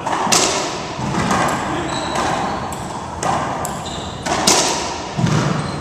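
Racquetball rally: about seven sharp, echoing smacks of the ball off racquets and court walls, the loudest about four and a half seconds in, with a few brief sneaker squeaks on the hardwood floor.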